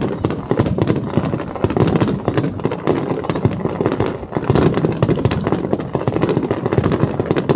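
Fireworks going off in a continuous barrage: a dense, rapid, irregular crackle of many small bursts.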